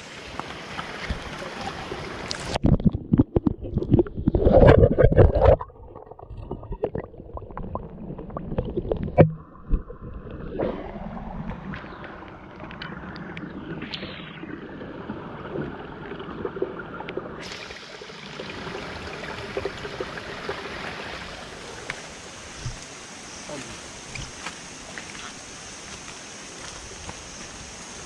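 Shallow rainforest stream running over rocks, with a person's hands splashing in the water. A loud stretch of close splashing and knocks comes a few seconds in, with a sharp knock about nine seconds in; after that the stream runs steadily.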